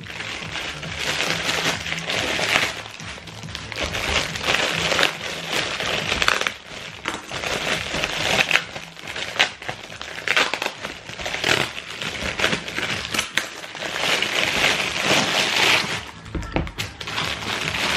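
Packaging rustling and crinkling in bursts as a pair of trainers is unwrapped, with a music mix playing underneath.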